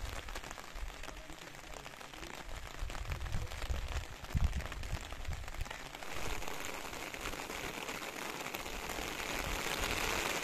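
Steady rain falling, a dense patter of drops, with the pattering on an umbrella overhead and a few low thumps in the first half. The rain gets louder from about six seconds in.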